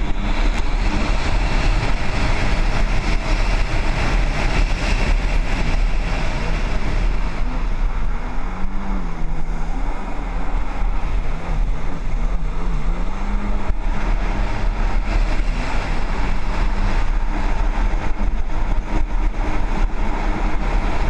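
Jet ski engines running, with a steady dense drone and a strong low rumble; one engine's pitch wavers up and down repeatedly about midway.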